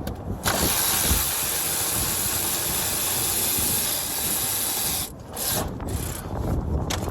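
A steady hiss starts about half a second in and stops suddenly about five seconds in.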